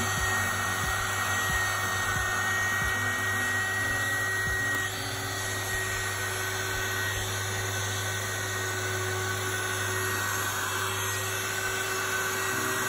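Small USB-powered keyboard vacuum running steadily on a laptop's USB power, its duster brush worked over the keys; a high steady whine in it stops about five seconds in and the sound gets a little quieter.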